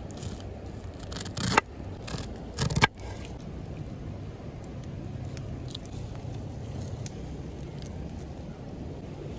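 Knife slicing grilled corn kernels off the cob against a wooden cutting board, with two loud sharp cuts in the first three seconds, then a few light scrapes and ticks as the kernels are gathered. A steady low rumble runs underneath.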